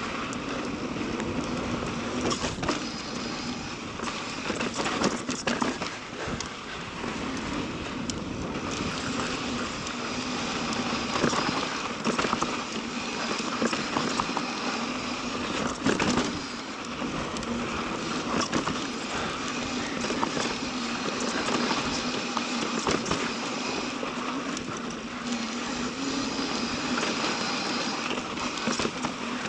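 Mountain bike riding fast down a dirt trail: knobby tyres rolling over dirt and rock with a steady buzz from the coasting freewheel hub, the bike rattling and knocking sharply over bumps several times.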